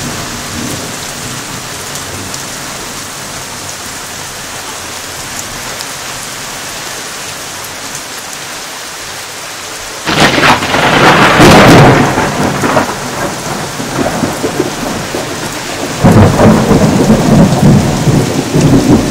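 Steady rain falling, then about halfway through a sudden loud clap of thunder that rumbles on for a few seconds, and a second loud peal of thunder near the end.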